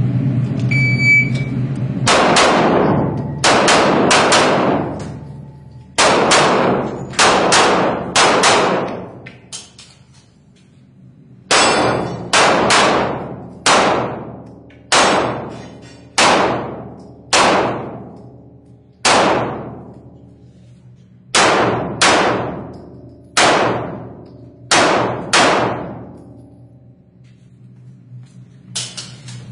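A short electronic shot-timer beep, then a long string of handgun shots fired in quick groups, each crack ringing briefly, with short pauses between strings as the shooter moves or reloads.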